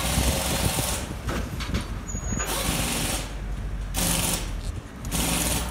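Loud bursts of compressed-air hissing, each about a second long, the strongest at the start and again about four seconds in, over a steady low rumble of machinery.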